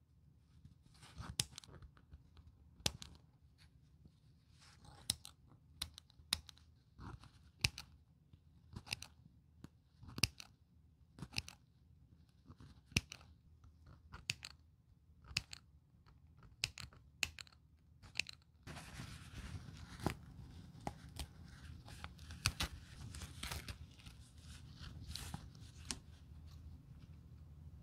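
Small steel scissors snipping through stitching thread on a bag's fabric lining: sharp, separate snips every second or so. About two-thirds of the way through, a steady rustle of handled fabric sets in under the continuing snips.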